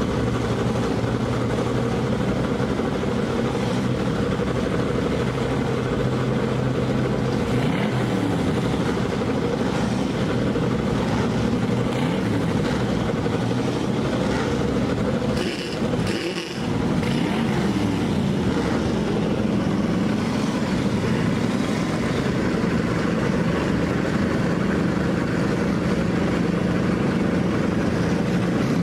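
Engines of several vintage race cars running loudly at idle and revved now and then, the pitch rising and falling around eight seconds in. There is a brief drop about sixteen seconds in.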